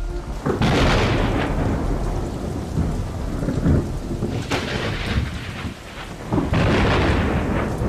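Heavy rain falling steadily, with three rolls of thunder: about half a second in, about four and a half seconds in, and again about six and a half seconds in.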